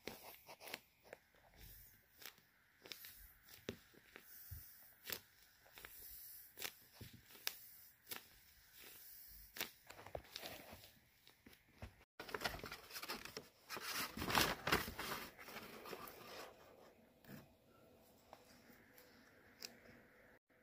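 Handmade paper squishy being squeezed and handled, its paper crinkling and crackling in many short snaps. After a cut about twelve seconds in, the crinkling becomes denser and louder for a couple of seconds, then eases off.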